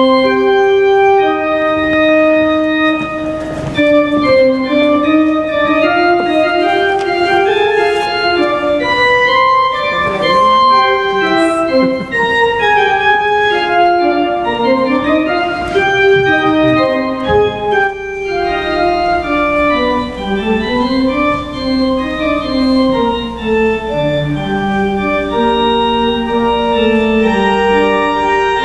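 Church organ playing a slow piece in several moving voices of held notes. Deeper bass notes join about two-thirds of the way through.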